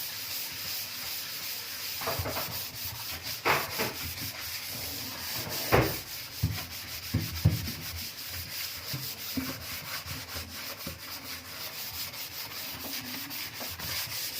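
A scouring pad scrubbing a stainless steel kitchen sink in fast back-and-forth strokes, a steady scratchy rubbing, with a few knocks along the way.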